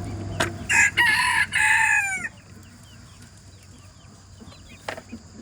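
A rooster crowing once, a drawn-out crow about a second and a half long that drops off at the end. Faint, quick high chirps repeat after it.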